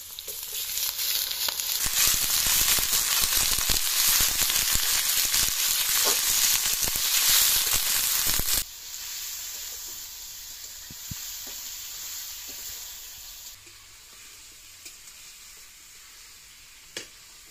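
Raw chicken pieces dropped into hot oil in a kadai, sizzling loudly as they begin to fry, with a metal spatula scraping and clicking against the pan. After about eight and a half seconds the sizzle drops suddenly to a quieter, steady sizzle, and it fades further near the end.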